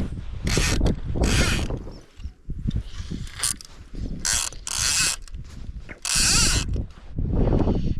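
Salmon fly reel's click-pawl ratchet buzzing in about five short pulls as line is drawn off or wound on the reel.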